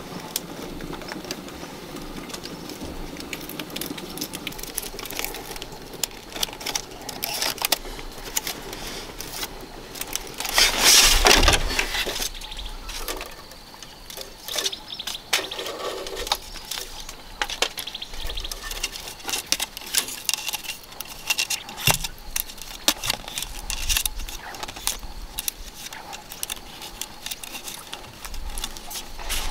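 Thin split-bamboo strips clicking and rustling in the hands as they are woven, bent into a hoop and bound. Irregular small ticks throughout, with one louder rush of noise about eleven seconds in.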